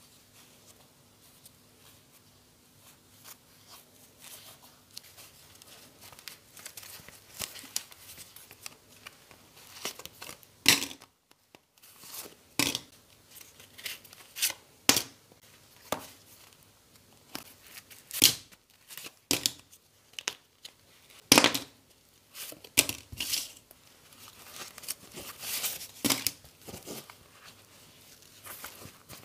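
Close handling of a leather wallet: leather rubbing and flexing, and plastic cards sliding in and out of the card slots, with irregular rustles and scattered sharp clicks and taps. It starts faint and grows busier after about six seconds, with a short silent break a little past ten seconds.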